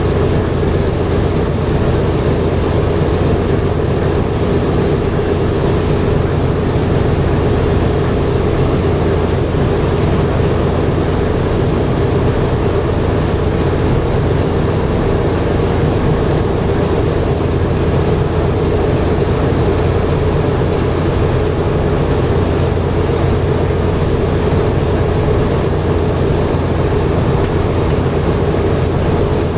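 The four Wright R-1820 Cyclone nine-cylinder radial engines of a B-17 Flying Fortress running steadily: a loud, even, unbroken drone heard from inside the fuselage.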